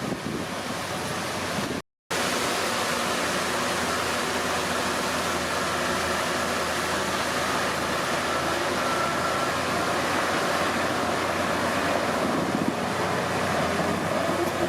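Komatsu D31P bulldozer running steadily, its engine mixed with a rushing noise. The sound cuts out completely for a moment about two seconds in.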